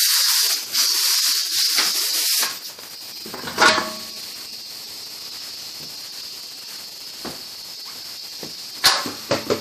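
Steady hiss of compressed air at a pneumatic impact wrench, cutting off about two and a half seconds in. About a second later a single metallic clank with a short ring comes as the steel wheel is pulled off the hub studs, and there is a faint click near the end.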